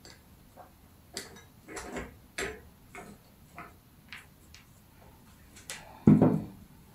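Scattered light clicks and taps from working a hot glue gun and tinsel at a table, irregular, about one or two a second. A louder knock about six seconds in.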